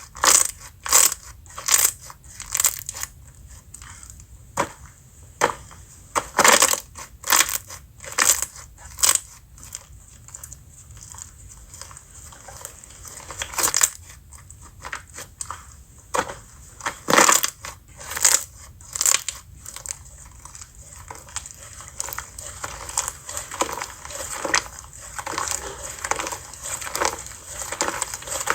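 Slime being squeezed and pressed by hand, making irregular crackling and popping clicks, some louder than others.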